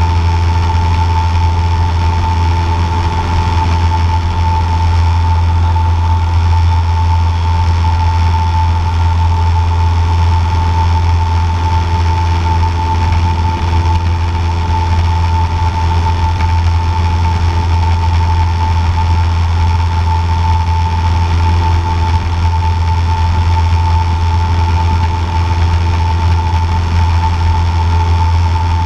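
Cessna 150J's Continental O-200 four-cylinder engine and propeller running steadily in flight, heard from inside the cabin, with a steady high whine over the low drone.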